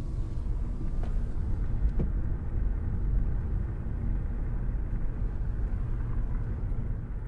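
A car driving along a road, heard from inside: a steady low rumble of engine and tyre noise.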